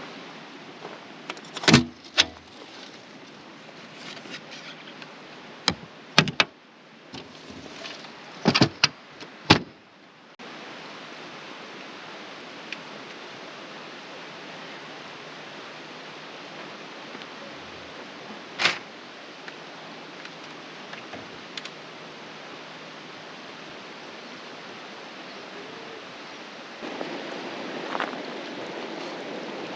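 A run of sharp knocks and clicks, like doors and latches being worked, through the first ten seconds. Then a steady rushing of river water, with one more sharp click partway through and the rush growing a little louder near the end.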